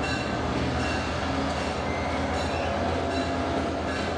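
Diesel-electric freight locomotives passing at close range: a steady, pulsing low engine rumble over the clatter of wheels on rail, with a few short high squeals.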